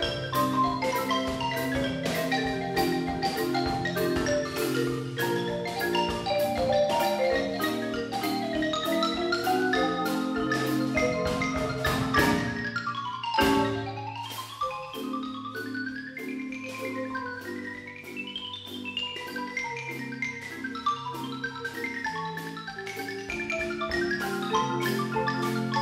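Percussion ensemble playing on marimbas and another mallet keyboard, with a drum kit keeping time: fast, quickly repeated mallet notes in a steady rhythm. About twelve seconds in the texture breaks with two loud strikes, then the mallets come back more softly with a melody that climbs and falls.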